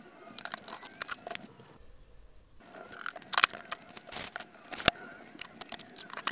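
Household objects being handled and moved: irregular knocks, clicks and rustling as things are picked up and shifted in a wooden cabinet, with a sharp knock about five seconds in.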